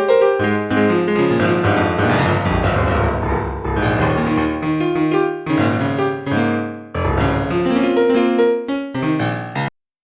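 Background piano music with a low bass underneath, a series of sustained and repeated notes, that cuts off suddenly near the end.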